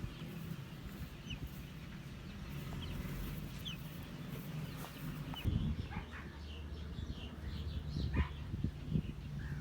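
Young chickens peeping and clucking in short scattered calls over a steady low rumble, with a few short low knocks in the second half.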